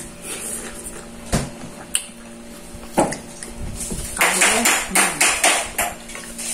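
Table sounds of people eating with their hands from plates: a few sharp clicks of crockery, then from about four seconds in a quick run of noisy smacks and clatters, about three a second, over a faint steady hum.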